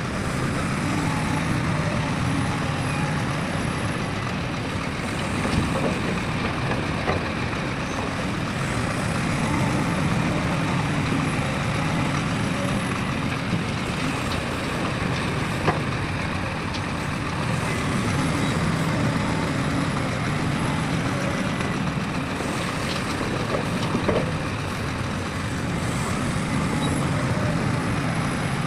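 Heavy diesel machinery, an excavator and dump trucks, running steadily, with a few sharp knocks spread through.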